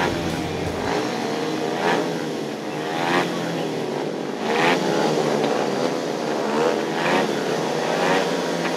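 Several speedway motorcycles waiting at the starting tape, engines running with repeated throttle blips that make the pitch rise and fall.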